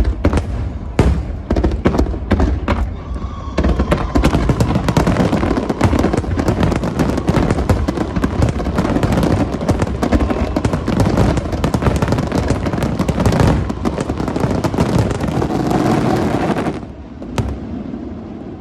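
Aerial fireworks bursting: a few separate bangs, then from about three and a half seconds in a dense, rapid barrage of overlapping explosions for some thirteen seconds, which thins out abruptly near the end.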